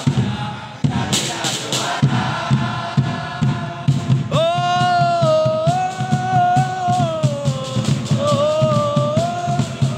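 A group of supporters singing a chant together over steady drumming. About four seconds in, one loud voice takes up a long sung line that rises and falls in pitch.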